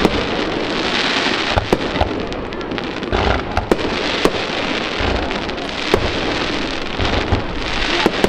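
Aerial fireworks bursting: a dense, continuous crackle with repeated sharp bangs and a few deep thuds.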